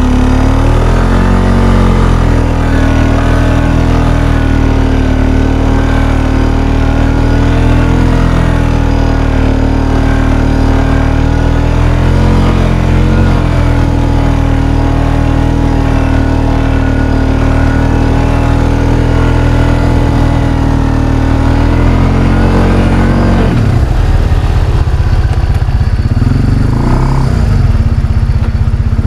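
ATV engine running under load, its pitch rising and falling with the throttle. From about three-quarters of the way through, it revs up and down in quick swings.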